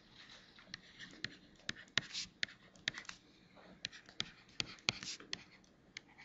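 Stylus writing by hand on a tablet PC screen: a run of sharp, irregular ticks and taps with faint scratching between them.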